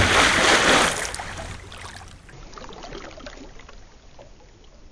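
A splash of something plunging into water, loudest at the start, then bubbles rising and gurgling as it fades away over a few seconds.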